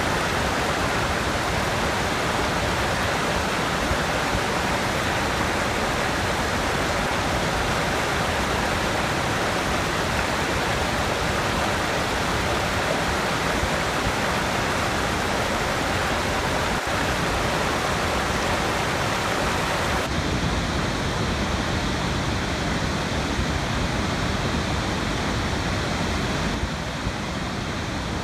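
Rushing water, a steady, even rush. About two-thirds of the way in it changes to a duller rush with less hiss, and it starts to drop away at the very end.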